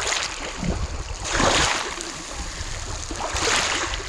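Black Sea waves breaking on the shore, two surges of surf about two seconds apart over a steady wash of sea noise, with a low rumble of wind on the microphone.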